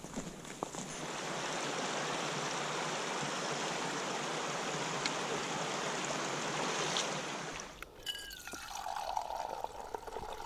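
Steady rush of running water from a stream, which cuts off suddenly near the end. Then a hot drink is poured quietly from a thermos into a mug.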